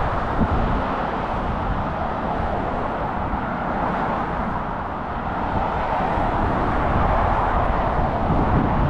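Steady road traffic noise from cars passing, a continuous wash of tyre and engine sound over a low rumble that swells slightly in the second half.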